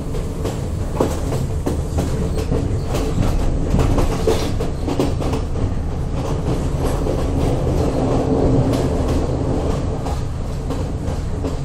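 A moving vehicle running steadily: a continuous low rumble with frequent irregular clicks and knocks.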